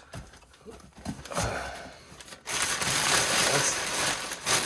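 Packing paper being handled in a cardboard box: a few faint handling sounds, then from about halfway through a steady, loud rustling and crinkling of the paper.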